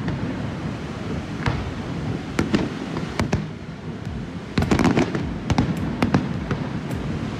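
Fireworks display bursting overhead: irregular bangs and crackles over a steady low rumble, densest about two-thirds of the way through.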